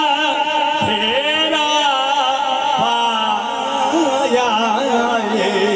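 Sufi devotional singing: a voice draws out a long, wavering melismatic phrase between lines of the refrain, over steady held accompanying notes.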